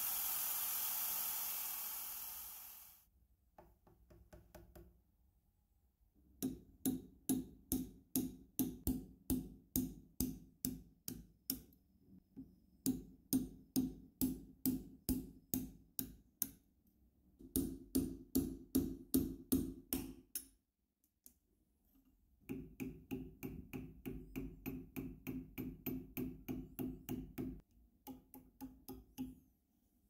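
A drill bit cutting into a steel rivet head in the padlock's galvanized steel case, ending about three seconds in. Then runs of quick hammer taps on a steel chisel set against the case, about three blows a second, in four bursts with short pauses, to drive the case apart.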